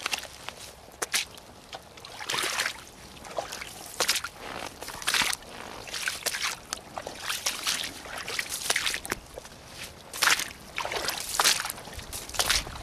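Rubber boots (Soviet 'Red Bogatyr') stepping through shallow water and wet dry grass, each step splashing and sloshing, about one step a second.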